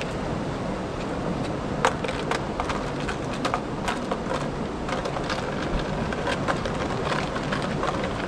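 Steady wind and sea wash against concrete breakwater blocks, with many irregular sharp clicks and ticks from about two seconds in, the loudest one near two seconds.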